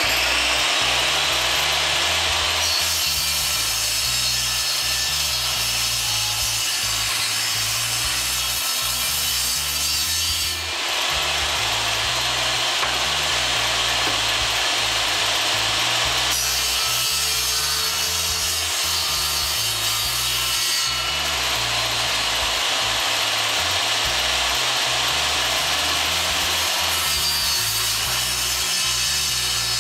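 Small table saw running and cutting through a wooden board, loud and continuous. Its sound shifts every several seconds as the board is fed through the blade.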